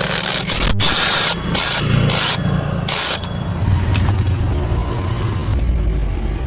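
Car starter motor cranking with a heavy, snoring growl and several short harsh scraping noises in the first three seconds. A snoring starter is a sign, as the mechanic puts it, of worn carbon brushes or a dry, worn bearing on the armature shaft.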